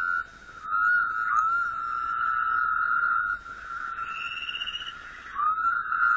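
Long, high trills held at one steady pitch, from a calling animal, several in a row with short breaks between, each opening with a brief upward slide. A fainter, higher trill joins about two-thirds of the way through.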